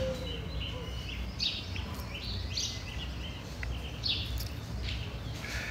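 Birds chirping in scattered short calls, over a faint steady low background hum.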